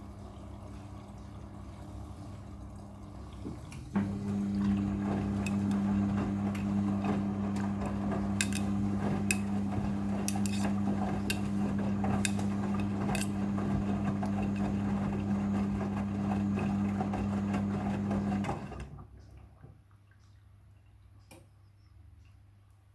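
Midea front-loading washing machine during its rinse cycle: a steady electric hum with rushing water and occasional clicks starts suddenly about four seconds in and cuts off near the end. A fainter hum comes before it.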